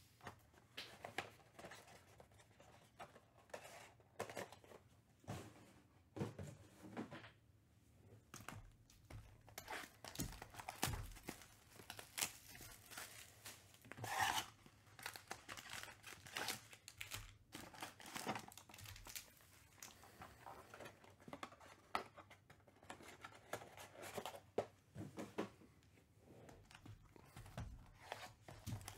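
Foil trading-card packs and shrink-wrapped cardboard card boxes handled on a table: irregular crinkling, rustling and light taps. Near the end a utility knife slits a box's plastic shrink wrap.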